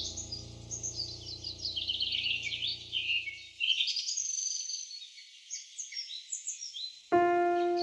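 Songbirds chirping and singing in quick, overlapping trills over soft, sustained background music that fades out about halfway through. A piano starts playing near the end.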